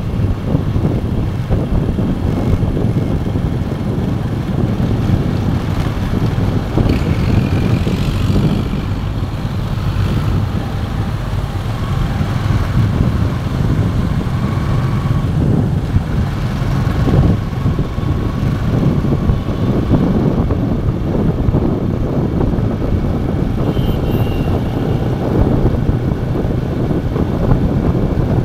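Steady wind rush buffeting the phone's microphone on a moving motorcycle, over the motorcycle's running and road noise.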